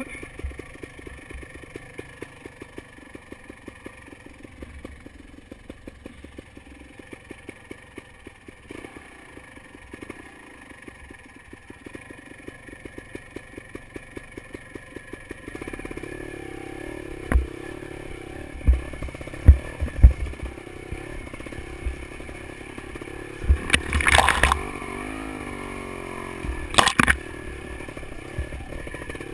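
Beta Alp 250 motorcycle engine running at low revs with slow, even firing pulses while riding a rough dirt trail. About halfway through it picks up revs and runs louder, with several sharp knocks and clatter from the bike jolting over the rutted ground.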